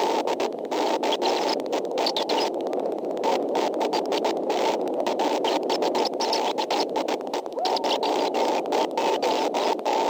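Steady rushing hiss from an outdoor nest camera's live audio feed, broken by many brief dropouts.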